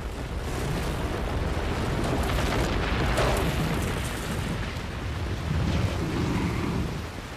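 Collapse of a World Trade Center tower and its onrushing debris cloud: a continuous deep rumble and rush of noise, with a clatter of crackles about three seconds in.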